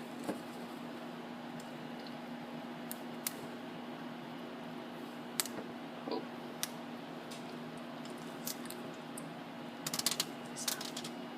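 Scattered short, sharp clicks and snips of an egg, boiled firm inside a condom, being cut out of it, with a cluster of quicker clicks near the end, over a steady low hum.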